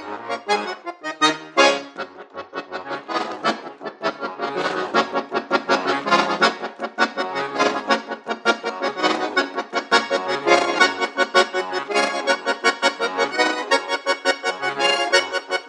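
Accordion playing a fast, busy passage of rapid repeated notes over a moving bass line.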